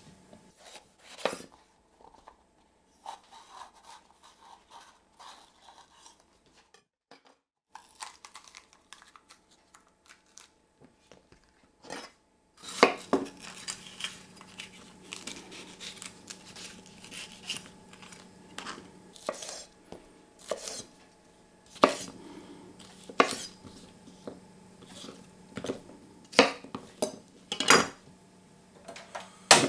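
Chef's knife slicing a red bell pepper on a bamboo cutting board: a few soft cuts and taps at first, then from a little under halfway a run of sharp knocks as the blade goes through the pepper and strikes the board, about one every second.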